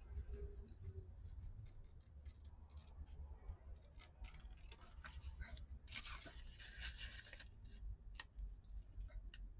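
Scissors snipping cardstock: a scattering of small clicks and snips, with a denser stretch of cutting from about six to seven and a half seconds in.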